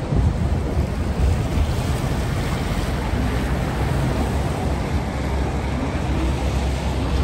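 Steady wind buffeting the microphone over a low rumble and hiss of street traffic on wet pavement.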